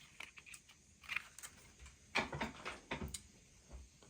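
Light clicks and knocks of small objects being handled and set down on a workbench, a few irregular taps with a firmer knock or two just after the middle.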